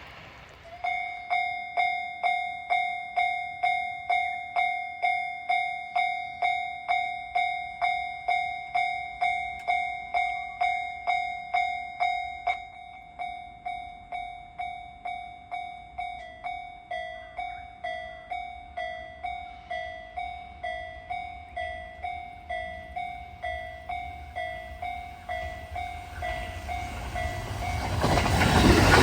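Japanese level-crossing alarm starting up and ringing its electronic 'kan-kan' bell about twice a second; past halfway it gets a little softer and two slightly different pitches alternate. Near the end the rumble of an approaching train rises quickly.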